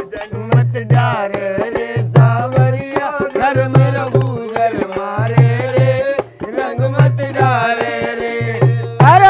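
Upbeat Indian folk music: hand drums beating a repeating pattern of low strokes under a bending melody line.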